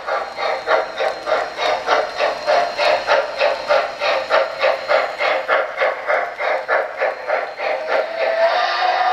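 Model steam locomotive's electronic chuffing from its onboard sound system, an even run of about three chuffs a second as the Norfolk & Western J class 4-8-4 model runs past. A steady steam whistle tone comes in near the end.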